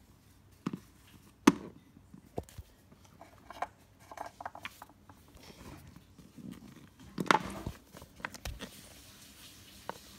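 Scattered clicks and knocks of plastic toy animal figures being handled and set down on a hard surface, with a cluster of knocks near the middle.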